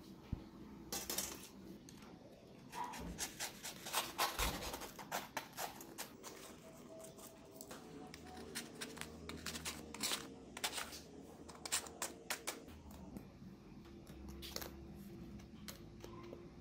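Crisp baked meringue shell cracking and crunching as a utensil breaks into its top: irregular sharp crackles and scrapes, bunched in clusters.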